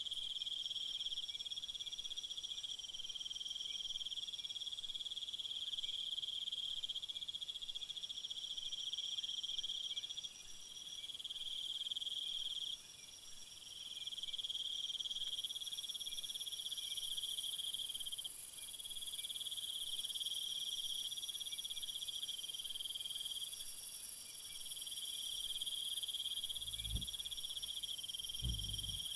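A chorus of crickets and other night insects trilling steadily at several high pitches, layered over one another. Two short low thumps near the end.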